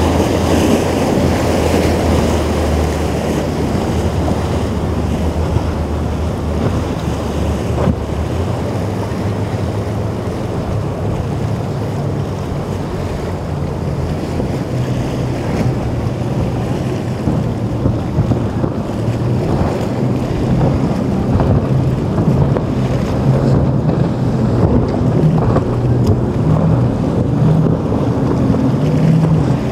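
Boat engines running through rough inlet surf, with wind buffeting the microphone and waves washing. The low engine drone steps up in pitch about eight seconds in.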